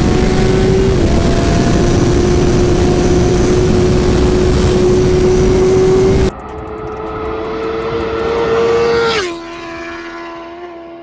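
2008 Kawasaki ZX-10R inline-four with a straight-through exhaust, held at high revs at full throttle, with wind noise over it. About six seconds in, the sound switches to a roadside recording: the bike comes closer, its note rising in pitch and level, then drops sharply in pitch as it passes and fades away.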